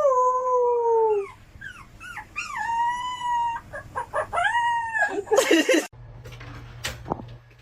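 A dog howling: a string of long, drawn-out howls that rise and then sag in pitch. A short, rough burst of noise follows about five and a half seconds in, then only a low steady hum.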